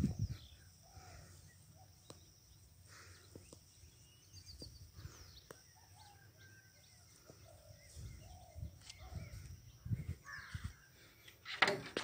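Faint outdoor rural ambience with scattered short bird calls, a few low thumps from the phone being carried, and a louder burst near the end.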